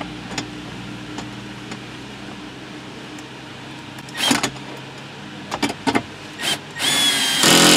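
Small Milwaukee cordless drill/driver driving a screw into a plastic dash panel: a short buzz of the motor about four seconds in, a few light clicks, then a longer run of the motor whining near the end.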